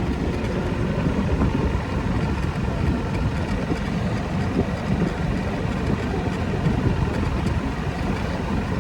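A small ride-on vehicle running steadily while under way: an even low rumble of motor and wheels.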